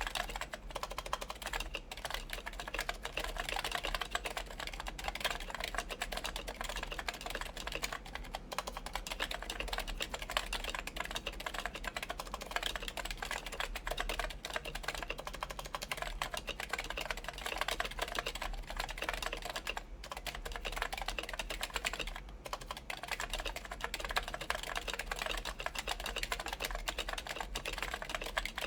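Continuous fast typing on a Linworks PC Dolphin electrostatic-capacitive keyboard with DynaCap Light Dome switches, fitted with silencing rings and DCS keycaps on an aluminum plate. Quick, dense keystroke clicks with a few brief pauses.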